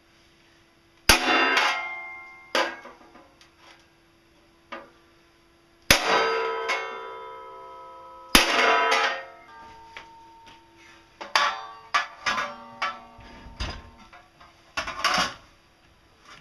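Hammer blows on steel sheet. A few heavy clanging strikes ring on for a second or more each, with lighter knocks between them, then a quicker run of lighter taps near the end.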